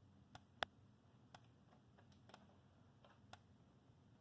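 Faint sharp ticks about once a second, one of them louder about half a second in: a fire alarm strobe's flash firing on each flash while the system is in alarm.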